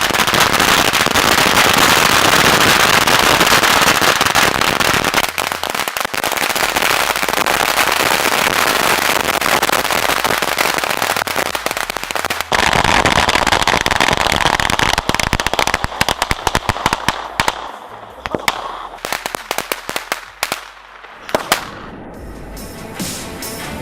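About a thousand small K0201 firecrackers, bundled together, going off at once in a continuous dense crackle of bangs. The crackle thins out into scattered separate pops over the last few seconds and dies away near the end.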